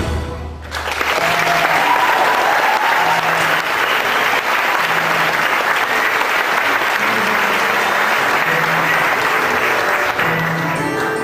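Music stops right at the start, and about a second in a large theatre audience breaks into steady applause that carries on through the rest, with faint music under the clapping.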